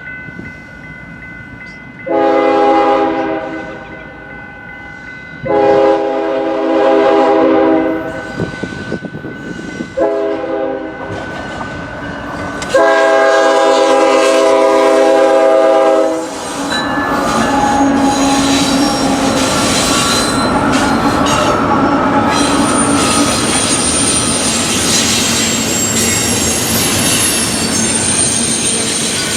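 Diesel locomotive's multi-chime air horn sounding long, long, short, long, the standard grade-crossing signal, as a freight train approaches. The train then passes close by with steady wheel and rail noise, clickety-clack and high-pitched wheel squeal in the second half.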